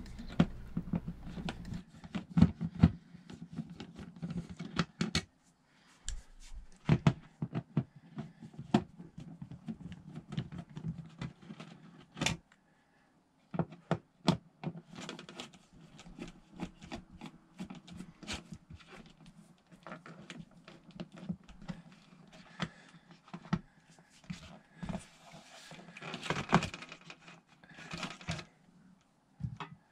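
Hand screwdriver backing out the screws that hold a fluorescent light fixture to the ceiling: scattered, irregular clicks and short scrapes of the bit, screws and fixture.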